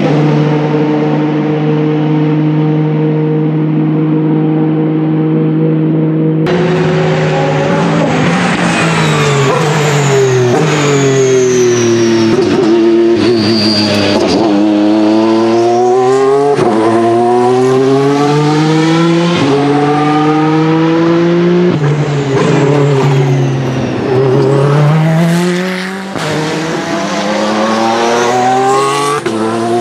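Isotta Fraschini Tipo 6 LMH Competizione's 3.0-litre V6 hybrid race engine at high revs. For the first six seconds it holds a steady pitch. After that it falls in pitch as the car slows and downshifts, then climbs again in steps through a series of quick upshifts, several times over.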